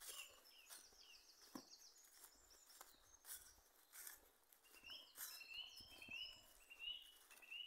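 Faint woodland birdsong: a quick run of high notes about a second in, then a longer series of short, repeated chirps through the second half. Soft footsteps rustle through dry fallen leaves.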